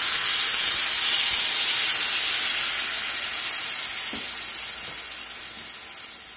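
Worcestershire-based barbecue sauce sizzling hard in a hot skillet of oil and whole shrimp, just poured in. The loud hissing sizzle dies down steadily.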